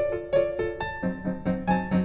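Background piano music: a run of quick notes, with a lower note coming in and held about a second in.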